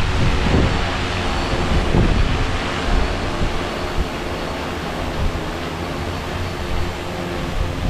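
Large hexacopter drone hovering, its six HobbyWing XRotor X6 motors and propellers giving a steady hum. Gusty wind buffets the microphone, heaviest in the first couple of seconds.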